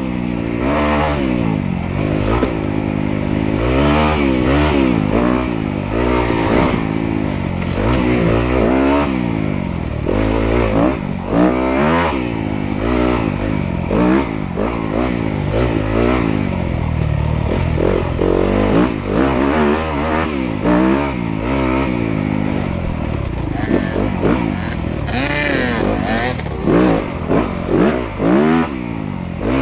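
Dirt bike engine revving up and falling back again and again as the throttle is opened and closed while riding. It is heard close up from a helmet-mounted camera.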